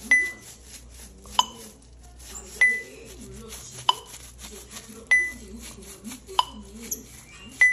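Regular electronic beeps, about one every 1.25 seconds, alternating between two different pitches, over faint low voices.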